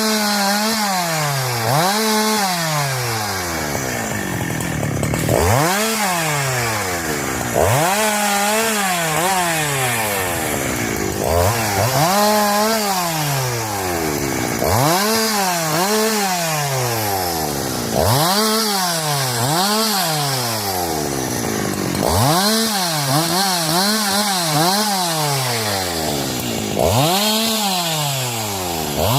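Husqvarna 372 two-stroke chainsaw revved up and down again and again, the engine pitch rising and falling with each squeeze of the throttle, with a faster run of revs in the second half.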